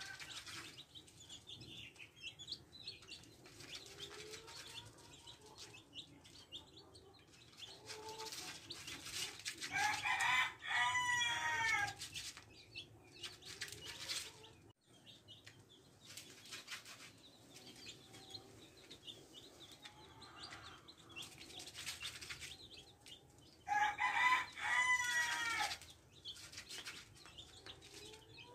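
Month-old Indonesian black chicks peeping and pecking grain from a feed tray, with many small taps. Twice, about a third of the way in and again near the end, a chicken gives a loud, drawn-out call lasting about two seconds.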